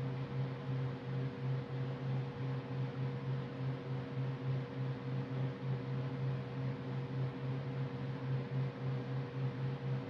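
Electric pedestal fan running: a steady low hum that pulses a few times a second, with a fainter higher tone above it.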